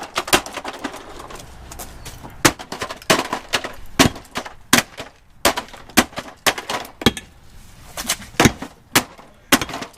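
Vacuum cleaner being smashed apart with a hammer: a run of sharp cracking blows, unevenly spaced at about two a second.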